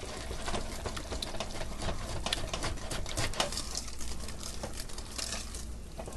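Wire whisk beating thick chocolate cake batter in a stainless steel saucepan, its wires clicking and scraping rapidly and unevenly against the pan.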